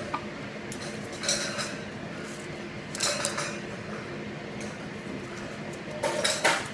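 Small paring knife cutting through crisp Red Love apple flesh and skin: three short, crisp cuts about a second, three seconds and six seconds in. Under them runs a steady background hum.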